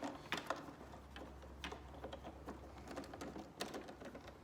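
Scattered small clicks and taps of a screwdriver and hands working screws out of a plastic coffee-machine housing, with a low steady hum underneath from about a second in until near the end.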